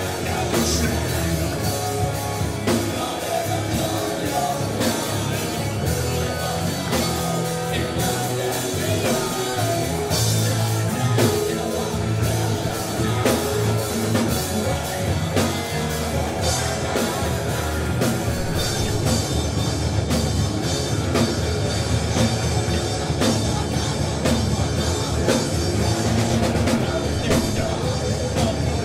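Metal band playing live: distorted electric guitars through amplifiers, bass and a drum kit with steady cymbal and drum hits, loud and dense throughout.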